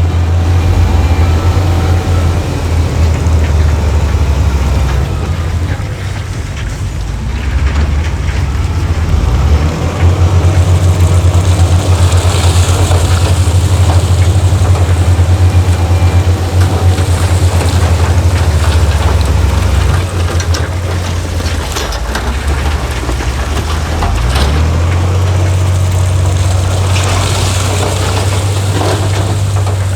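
Heavy diesel engines of earthmoving machinery running steadily, with the engine rising and falling in level. Scattered metallic clanks run through it, and there are two short hissing bursts, one about twelve seconds in and one near the end.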